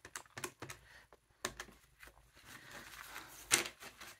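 Plastic desk calculator keys being tapped in a quick series of light clicks as a running total is entered. Paper banknotes rustle crisply about three and a half seconds in as a stack of bills is handled.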